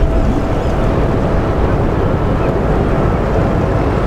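Wind buffeting the microphone by the water: a steady low rumble with a faint steady hum underneath.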